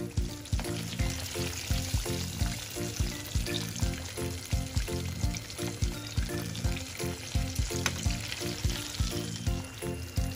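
Breaded chicken wings deep-frying in hot oil: a steady bubbling sizzle as the wings reach golden brown. Background music with a steady beat plays over it.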